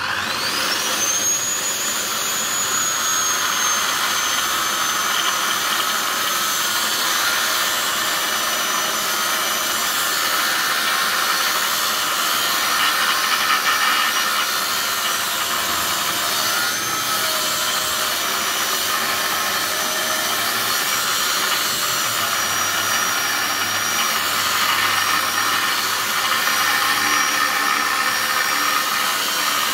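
Electric demo saw (cut-off saw) with a 7-inch abrasive disc spinning up with a steeply rising whine at the start, then running steadily at full speed with a harsh cutting noise as the disc works through a steel axle.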